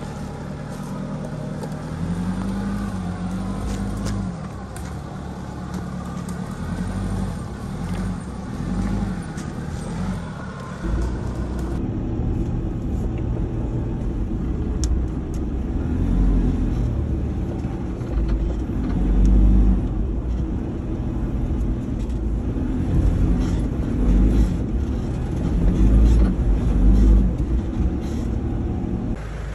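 Four-wheel-drive engine running and revving up and down as the vehicle crawls over a rough dirt track. From about twelve seconds in it is heard from inside the cabin, with a heavy low rumble and knocks and jolts from the track.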